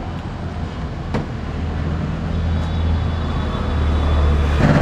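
Street traffic: a motor vehicle's low engine rumble grows louder over a few seconds, then drops away near the end.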